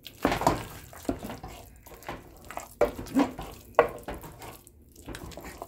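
A wooden mathu (churning stick) stirring and mashing thick, wet cooked jackfruit in a pot, with irregular scraping strokes and several sharp knocks of wood against the pot's side, the loudest a little under three and four seconds in.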